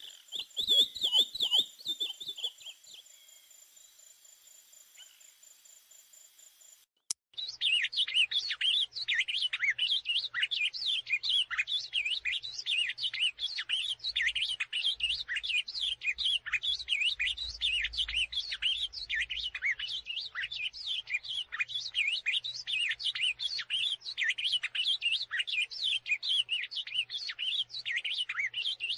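Songbirds chirping and warbling: a short warbled phrase at the start, a quieter stretch, then from about seven seconds in a dense, unbroken stream of rapid high chirps and trills.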